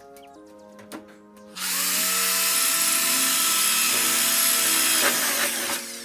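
Electric drill boring into a sheet-metal cable tray: about a second and a half in the motor spins up and runs loud and steady for about four seconds, its pitch dipping briefly in the middle, then winds down near the end. Light background music plays under it.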